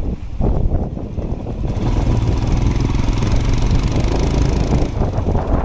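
Motorcycle engine running as the bike rides along, a steady low rumble. From about two seconds in it gets louder with an added hiss for some three seconds, then eases.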